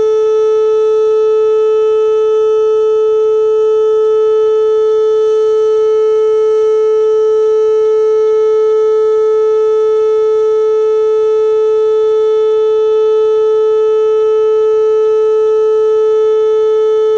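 Whelen WPS-2810 electronic tornado siren sounding a steady, unwavering tone at one pitch during a public warning system test.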